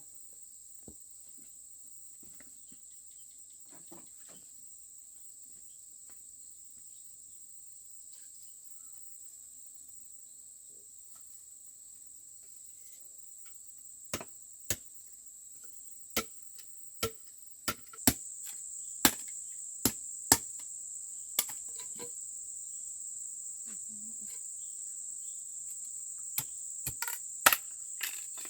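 A steady, high-pitched drone of crickets or similar insects, growing louder a little past halfway. Over it, from about halfway, come a dozen or so sharp, irregular cracks or snaps.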